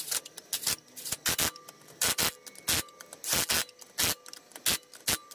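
DeWalt cordless impact wrench fired in many short bursts, tightening the lug nuts on a refitted wheel: brief rattling bursts at about four a second, irregular in spacing.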